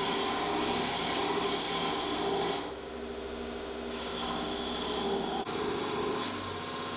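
Belt sander running with the rebar knife blade held against the abrasive belt: a steady grinding hiss that drops in level about three seconds in and shifts again near the end.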